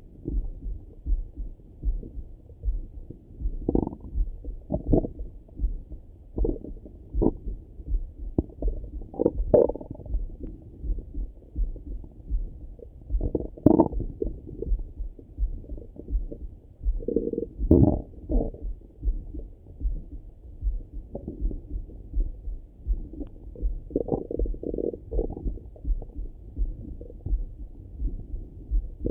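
Stomach and bowel gurgles heard through a Littmann stethoscope pressed to the belly: irregular short gurgles, with the strongest rumbles around the middle and again near two-thirds through. Underneath runs a steady low thumping, and the sound is muffled, with little above the low-mid range, as is usual through a stethoscope.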